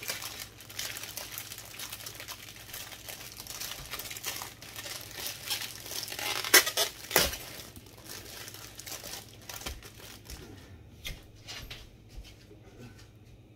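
Thin plastic wrap around a three-pack of bell peppers crinkling and crackling as hands pull at it, with two louder sharp crackles a little past halfway, then dying down near the end.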